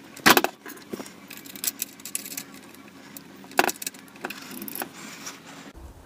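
Small metal parts clicking and clinking as bolts are removed and fitted by hand at the laser engraver's aluminium frame corner, to mount the front Y limit switch. Two sharper clicks stand out, about a third of a second in and about three and a half seconds in.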